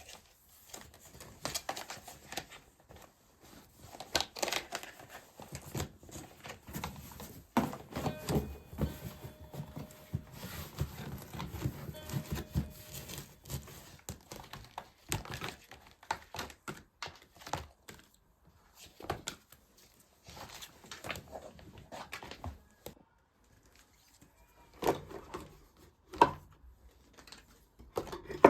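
Household items being handled in a small room: irregular knocks, taps and clicks with stretches of rustling, as during cleaning and tidying.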